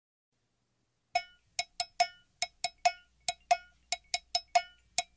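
Music intro: a single struck percussion instrument with a bright, bell-like ring, such as a cowbell, playing short sharp hits in an uneven rhythm, about four a second, starting about a second in.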